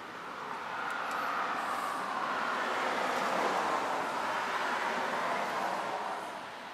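A passing vehicle: a rushing road noise that swells up, peaks midway and fades away over about six seconds.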